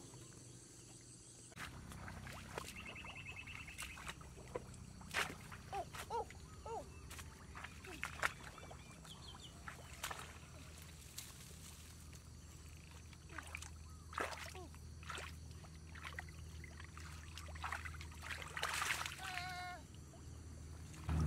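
Feet wading and sloshing through shallow muddy water, with scattered sharp splashes and knocks over a low steady rumble like wind on the microphone. A few short high-pitched calls break in now and then.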